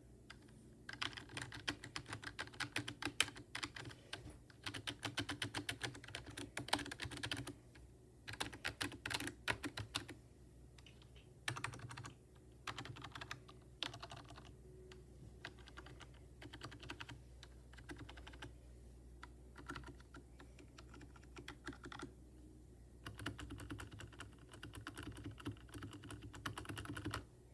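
Keys of a HyperX keyboard, the space bar above all, being pressed rapidly. Fast runs of clacks alternate with sparser taps and short pauses.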